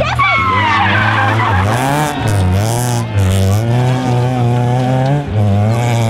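Rally car engines driven hard, their pitch climbing and dropping again and again with throttle lifts and gear changes, with short bursts of hiss from tyres sliding on a loose surface.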